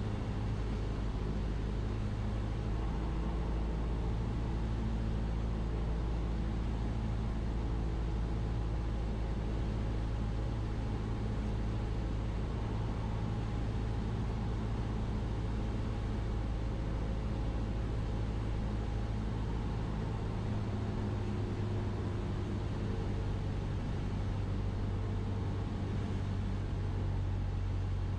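Cessna 172's piston engine and propeller droning steadily in the cockpit on final approach to landing. The lowest part of the drone thins out about twenty seconds in.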